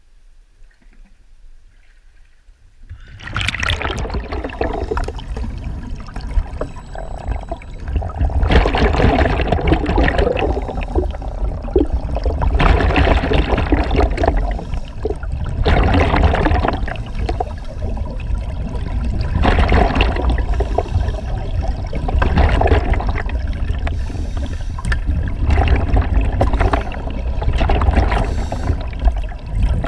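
Underwater sound of scuba diving: a diver's regulator releasing bursts of exhaled bubbles about every three to four seconds over a low steady rumble. It is faint at first, then becomes abruptly loud about three seconds in as it goes under the water.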